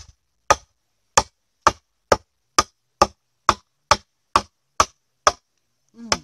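Machete chopping into the side of a thick bamboo tube to cut a hole: about a dozen sharp strikes at an even pace of roughly two a second.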